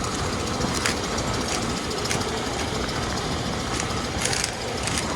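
Combine harvester running steadily while cutting corn, with a few sharp clicks and a brief rush of noise about four seconds in.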